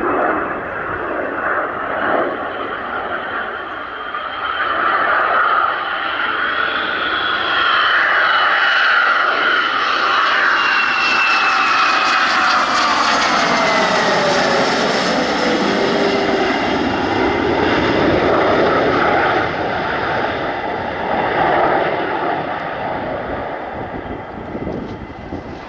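Jet aircraft passing close by. The engine noise builds, and its whine slides down in pitch as it passes, loudest in the middle, then fades away near the end.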